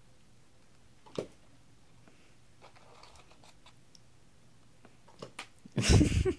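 A bull terrier lunging down to grab food off the carpet: a short loud burst of scuffling near the end, after a single sharp click about a second in and a few faint clicks.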